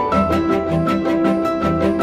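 Background music: an instrumental track with plucked strings and a steady beat.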